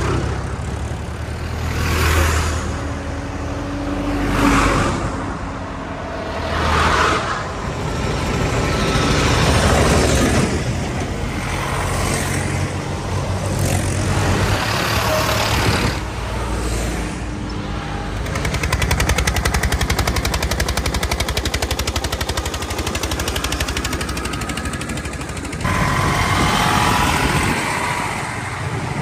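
Farm tractors' diesel engines running as they drive close past the microphone, swelling and fading several times in the first ten seconds. Later a steady, fast, even engine clatter from a tractor running close by.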